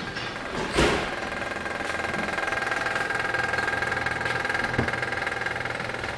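Steady machine hum with a thin high whine running through it, and a sharp knock about a second in.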